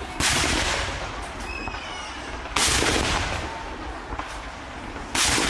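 Ceremonial saluting cannons firing three rounds about two and a half seconds apart, each a sudden blast followed by a long, slowly fading echo.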